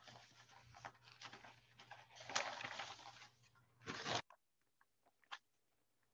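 Irregular crackling and rustling over a low steady hum; both cut off abruptly about four seconds in, and a few faint clicks follow.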